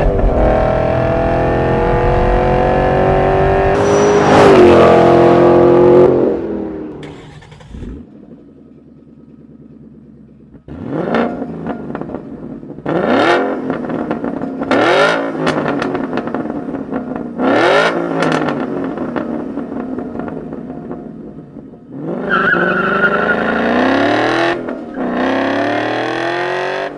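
A 2011–2014 Ford Mustang GT's 5.0-litre V8 through a Borla performance exhaust, accelerating hard and climbing through the revs for about six seconds. After a short lull come four sharp throttle blips about two seconds apart, each rising quickly and falling back, and then another climbing rev near the end.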